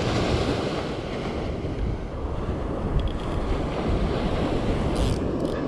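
Ocean surf breaking on a beach, with wind buffeting the microphone. A few light clicks come in the second half.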